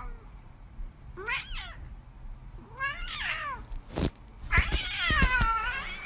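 A cat meowing three times, the last call the longest, with a sharp knock just before it.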